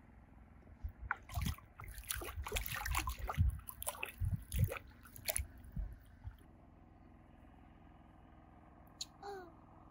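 Water splashing and sloshing with irregular knocks for about five seconds, then a short falling squeak near the end.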